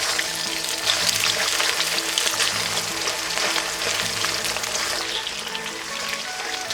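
Food sizzling and crackling as it fries in hot oil, under background music with steady held notes.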